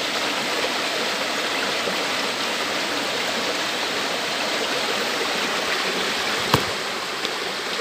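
Water rushing steadily through a narrow, stony ditch. A single sharp click about six and a half seconds in.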